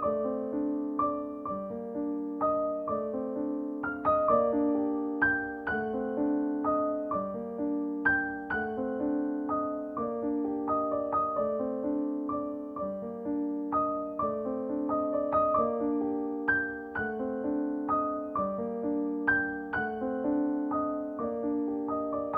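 Background music: a gentle piano or electric-piano melody with repeating chords.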